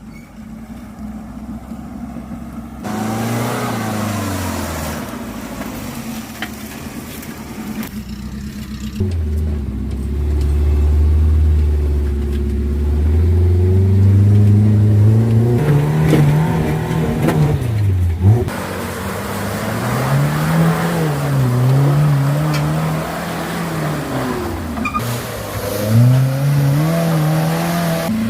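Off-road vehicle engine working under load, its pitch rising and falling as the throttle is opened and eased. It is quieter at first and becomes loud a few seconds in.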